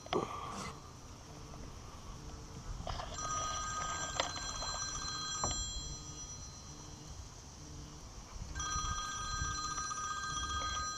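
A ringing of several steady high-pitched tones together, sounding in bursts of about three seconds with pauses of about two seconds between, three times over. A few short sharp knocks fall in between.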